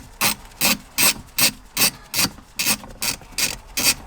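Socket ratchet on an extension clicking in quick, even back-strokes, about two and a half a second, as a 10 mm bolt holding the factory head unit is loosened.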